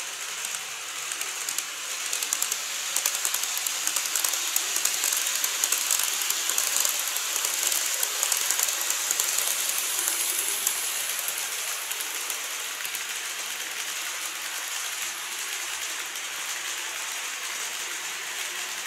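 Model train running across a plastic model truss bridge: a fast, dense clicking of wheels on the rails over a steady running hiss. It swells about two seconds in, is loudest in the middle as the train crosses, then fades as it moves away.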